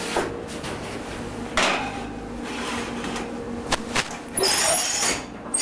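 A square metal baking pan going into an oven: clunks and knocks of the pan and oven rack, two sharp knocks, then a short high metallic scrape about four and a half seconds in, over a steady low hum.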